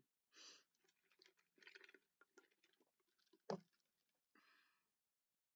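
Near silence with faint mouth noises close to the microphone: a soft breath, small lip and tongue clicks, and one sharper click about three and a half seconds in, followed by another breath.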